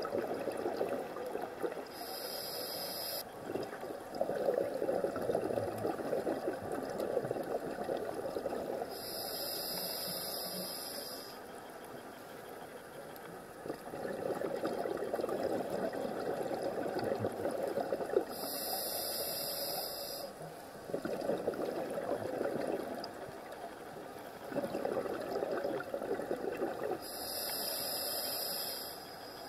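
Scuba breathing through a regulator underwater: four hissing inhalations through the demand valve, about every eight to nine seconds, each followed by a longer bubbling rush of exhaled air.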